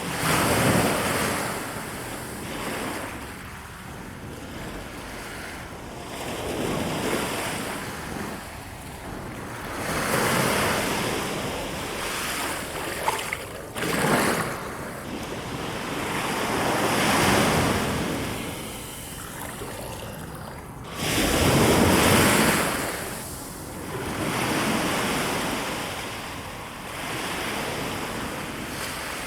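Rushing wind-and-surf ambience that swells and fades every three to four seconds, with a sharper surge about two thirds of the way in.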